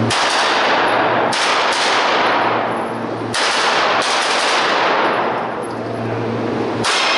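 Pistol-caliber carbine fired repeatedly, in several strings of shots that start at the beginning, about a second in, about three seconds in, and near the end. Each shot echoes loudly and fades slowly in the large indoor range.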